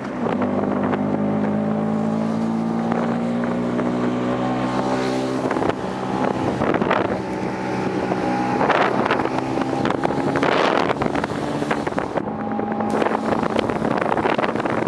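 Scooter engine running at steady revs, with wind noise on the microphone. A little over halfway the steady engine note fades under wind rumble and scattered knocks, then returns briefly near the end.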